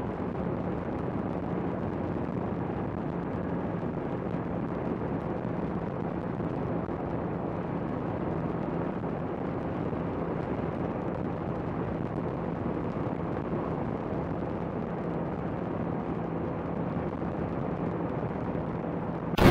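Honda CBR650R's inline-four engine running at a steady cruise, heard as an even hum under rushing noise from riding. A brief loud burst of noise comes right at the end.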